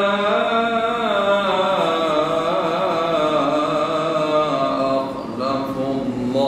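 A man's voice reciting the Quran in a slow, melodic chant, drawing out long wavering notes. The chant breaks briefly about five seconds in, then goes on.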